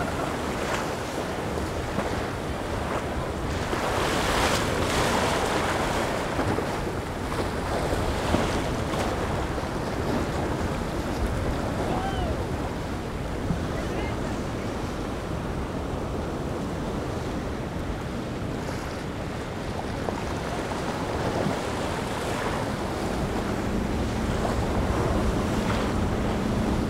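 Waves and choppy surf with wind buffeting the microphone. A steady outboard motor hum comes in near the end.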